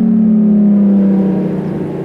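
Outdoor warning sirens winding down: several low siren tones sliding slowly down in pitch together, growing somewhat quieter about one and a half seconds in.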